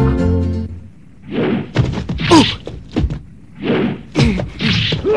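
Brass music stops about a second in; then comes a string of short, sudden bursts of noise with pained cries and grunts, the blasts, hits and yells of a tokusatsu fight scene.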